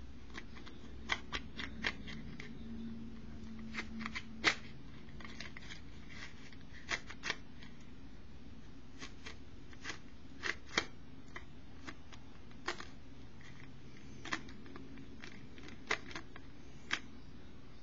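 Small neodymium magnet balls clicking sharply as rows are pried off a magnet-ball hexagon and snapped together into a line. The clicks come irregularly, a dozen or more, with short gaps between.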